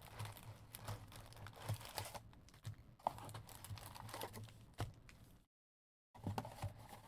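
Trading-card packs and cards being handled: a quiet run of rustling and small clicks and taps, which cuts out completely for about half a second near the end.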